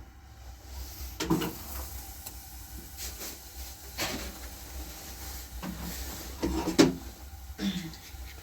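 Irregular knocks and clatters, about six in all, the loudest a little before the end, over a steady low rumble.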